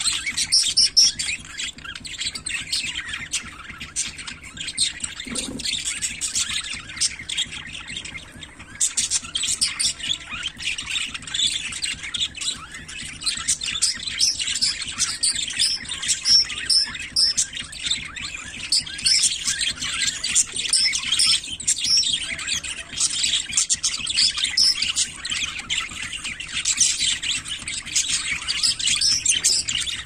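A flock of budgerigars chirping and chattering nonstop, many birds calling over one another.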